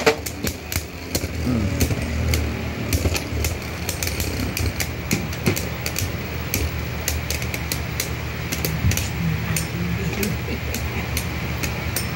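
Two Beyblade Burst spinning tops, one of them a Brave Valkyrie Evolution 2A, spinning together in a plastic stadium: a steady whirring with frequent sharp clicks as they strike each other and the stadium wall. The loudest click comes right at the start.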